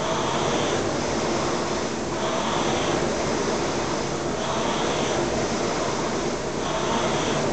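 Concept2 rowing machine's fan flywheel whirring, surging with each drive stroke about every two seconds.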